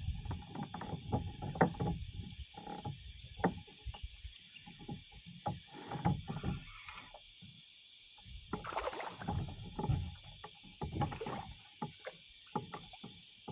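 Irregular knocks and thumps on a kayak hull and the gear in it, with two short water splashes about nine and eleven seconds in, over a steady high drone of insects.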